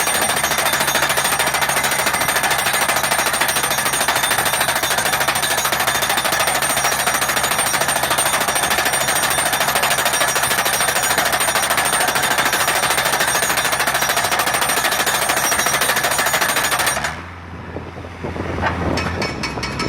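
Loud, rapid, steady mechanical hammering, like a percussive power tool at work. It cuts out suddenly about seventeen seconds in and starts up again about two seconds later.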